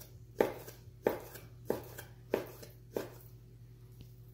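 Chinese cleaver slicing venison against the grain on a wooden cutting board: a steady run of strokes, each ending in a sharp knock of the blade on the board, about one every two-thirds of a second.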